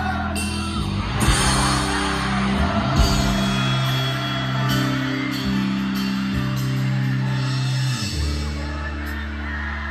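A pop-rock band playing live through a stage PA, with a sung lead vocal over acoustic guitar, electric guitar, keyboards, bass and drums.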